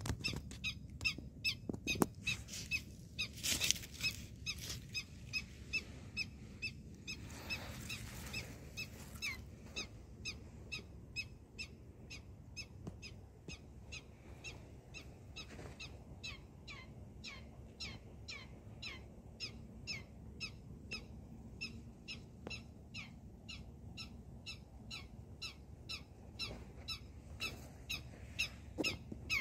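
A short high chirp repeated evenly, about two or three times a second, with two brief bursts of hiss around four and eight seconds in.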